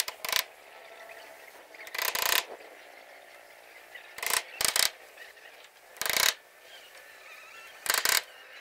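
Bamboo being worked by hand at the top of a bamboo cabin wall: six short scraping, rattling bursts that come irregularly, every second or two.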